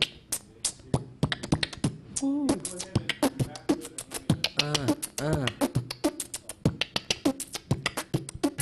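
A man beatboxing into a handheld microphone: fast mouth-made drum hits and clicks, with a few vocal notes that rise and fall in pitch mixed in near the middle.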